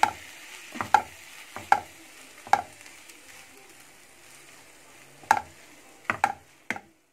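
A wooden spoon stirs vermicelli sautéing in a non-stick frying pan over a low, steady sizzle. The spoon knocks against the pan about four times in the first three seconds, then several times in quick succession near the end.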